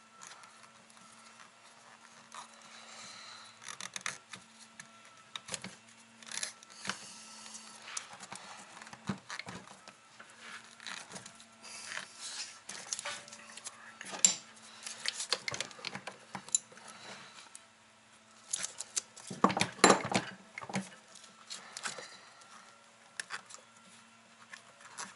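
Hands working the wiring and rubber terminal boots on a winch motor: scattered clicks, taps and rustling of cables and plastic, with a louder clatter about three-quarters of the way through. A faint steady low hum runs underneath.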